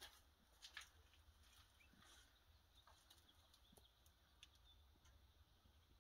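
Near silence: room tone with a low hum and a few faint scattered clicks, the clearest under a second in.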